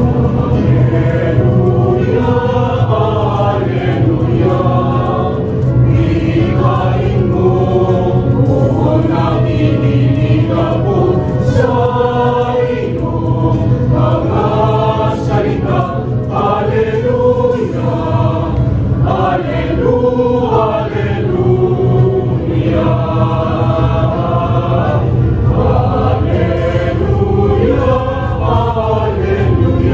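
Mixed choir of women and men singing together, the notes held and changing every second or so over a steady low bass.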